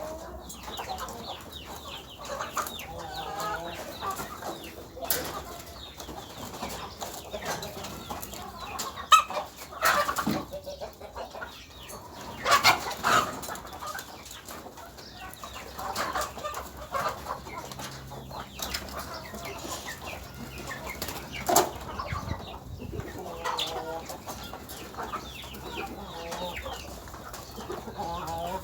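A flock of chickens clucking, with many scattered sharp taps and short scuffling noises in between.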